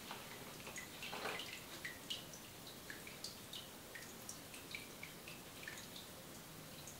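Faint, irregular wet ticks and drips, a few each second, from an oiled neck massage with wet hair over a shampoo basin. A brief louder rustle comes about a second in.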